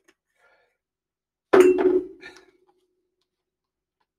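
A single hard knock with a short metallic ring, then a lighter clink less than a second later, as a small metal container is put down on the desk.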